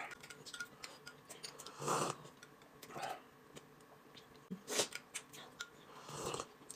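Quiet eating sounds at a table: scattered light clicks of tableware against bowls, with a few short mouth noises of chewing and sipping.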